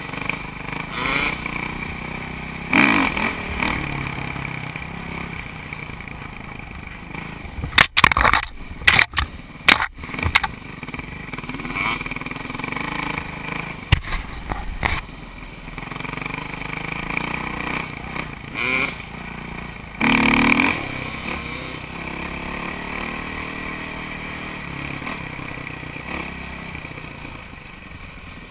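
Dirt bike engine running and revving unevenly, heard from a camera on the rider, with brush scraping past. About eight seconds in comes a quick run of loud, sharp knocks and clatters, and around twenty seconds in a short loud burst.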